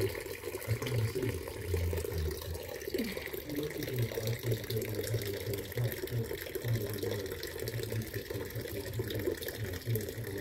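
Small garden water feature: a thin stream from a tap-shaped spout splashing steadily into a stone basin, with an uneven low burbling.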